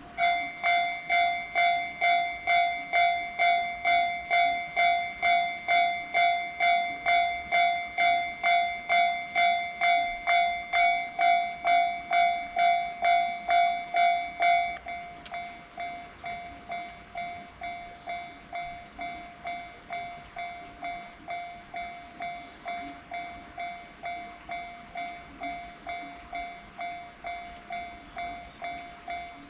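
Railway level-crossing warning bell on the Iida Line ringing steadily at about two strikes a second. About halfway through it drops to a much quieter level and keeps ringing at the same rate.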